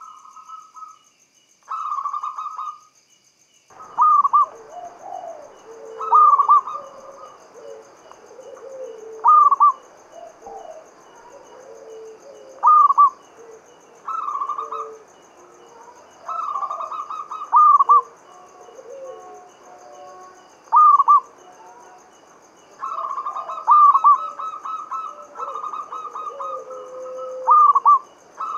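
Zebra dove (perkutut) singing its rhythmic cooing song: loud short phrases of quick coos, each ending in a sharp accented note, repeated about every two to three seconds. Softer, lower coos run between the phrases. The song briefly drops out near the start.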